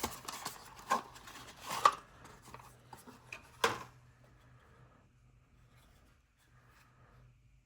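Handling of a leather lighter pouch: rustling and rubbing with several sharp clicks over the first four seconds, the loudest near the end of that stretch. After that there is only a faint low hum.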